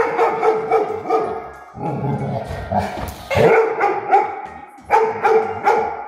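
A Labrador retriever barking and yipping in three bouts, reacting to a spring door stopper being flicked so it twangs.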